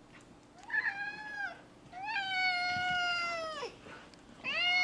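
Tabby house cat meowing three times in reply, worked up about a lizard he has seen outside: a short call, a long drawn-out one, and a third starting near the end, each held on a steady pitch and dropping away at the close.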